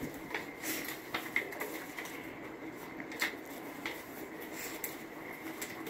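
Magazine paper rustling and crinkling in short, irregular crackles as a monkey flips and pulls at the pages.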